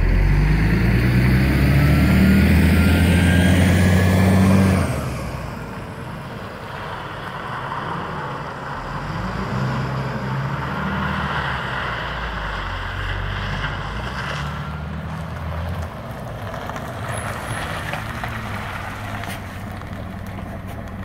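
2009 Mercedes-Benz Citaro G articulated bus with a Voith four-speed automatic accelerating hard under kickdown close by: loud diesel engine with a rising whine, dropping off sharply about five seconds in. The engine then runs more quietly as the bus circles at a distance, pulls again, and eases off as the bus rolls slowly past near the end.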